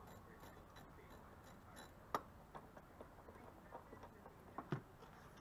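Faint, irregular clicks and taps of hand tools on metal parts in a van's engine bay, with one sharp click about two seconds in and a stronger tap near the end.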